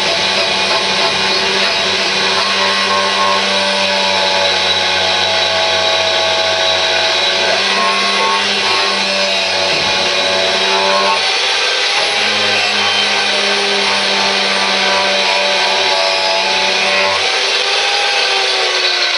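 Electric power tool running continuously while stripping paint off a steel mower pulley bracket. Its motor whine holds steady and sags in pitch near the end.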